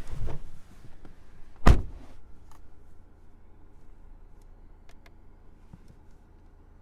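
A car door on a 2019 Honda Civic Type R shut with a single solid thud a little under two seconds in, after a brief rustle of movement. A low steady hum and a few faint ticks continue underneath.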